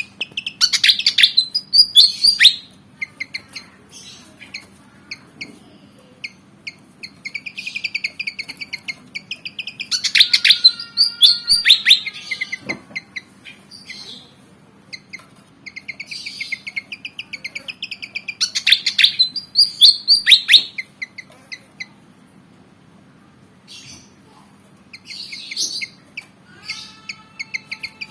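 Malaysian pied fantail (kipasan jawa) singing in repeated bouts of rapid, chattering notes, each bout a few seconds long with short pauses between, one bout carrying a stepped series of falling whistles.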